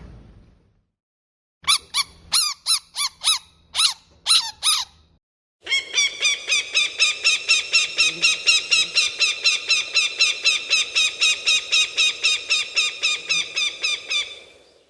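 Animal calls: about ten sharp, high squeaks, then a long run of rapid chattering calls, about four a second.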